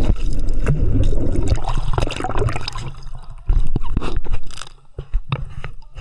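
Seawater churning and sloshing around a camera held in the water, heard muffled with a heavy low rumble, with many crackles and knocks from handling. It is loudest in the first half, surges again about three and a half seconds in, then eases off.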